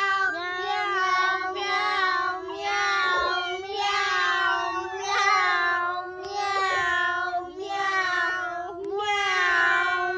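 A child making silly vocal noises: a long, slightly wavering sung note with meow-like cries repeated about once a second over it.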